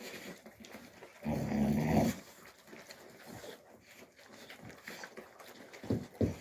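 An Alabai (Central Asian Shepherd) puppy growls once, low and loud, for just under a second about a second in, over a shared food bowl: a food-guarding growl. Two short, low sounds follow near the end.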